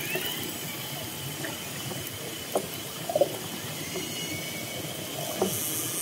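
Underwater hydrophone recording of orcas: short pulsed calls about two and a half, three and five and a half seconds in, and a few faint rising whistles, over a steady underwater hiss with a thin high tone throughout.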